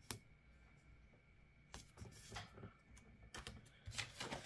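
Faint, scattered small taps and paper rustles: a paper sticker being pressed down onto a journal page, then sticker sheets being handled. One sharper click comes at the very start.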